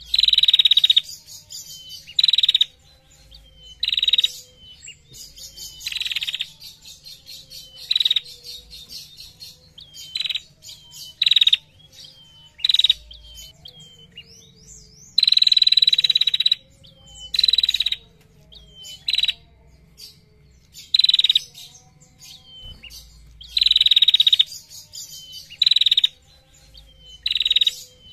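Female prenjak, a small caged songbird, calling 'ngetir': loud, dry, high trills of about a second each, repeated roughly every two seconds, with two or three longer ones.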